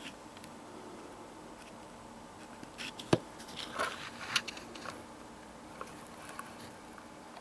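Hands handling a small plastic battery pack case: a few small clicks and short rustles in the middle, the sharpest a single click about three seconds in, over a faint steady hum.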